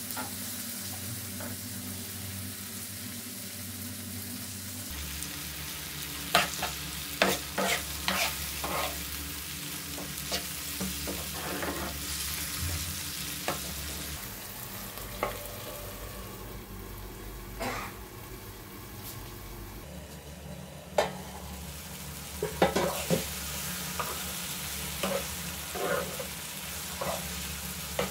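Chopped tomatoes and onions sizzling in a frying pan. A metal spoon stirs and scrapes them against the pan, with clinks and scrapes coming in clusters over the steady sizzle.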